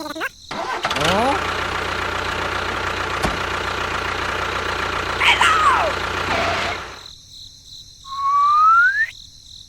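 A motor starts with a rising whine, runs steadily for about six seconds and cuts off suddenly. A short rising tone follows near the end.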